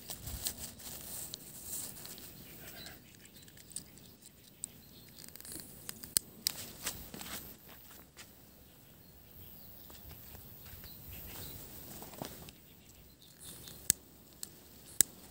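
Faint rustling and shuffling in grass, with a few sharp single clicks near the end as a hand-held lighter is flicked at a firecracker's fuse.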